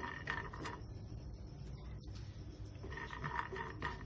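Walnut halves being stirred with a metal spoon in a dry nonstick pan: quiet, repeated scraping and rattling strokes, clearer near the end, over a steady low hum.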